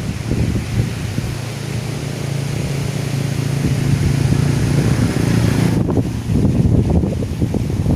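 Strong gusty wind buffeting the microphone, a loud low rumble with a hiss above it that thins out about six seconds in.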